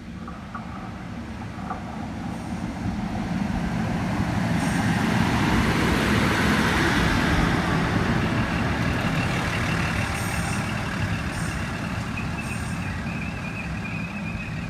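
Endeavour diesel railcar set running in, its diesel engines humming under the rumble of wheels on rail, growing louder to a peak about six to seven seconds in and then easing. From about eight seconds a steady high-pitched whine joins in and continues while the set stands at the platform.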